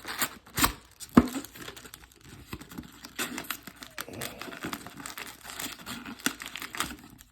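Wrapping on a sealed box of trading cards crinkling and tearing as it is worked open, with a few sharp knocks in the first second or so, the loudest about a second in.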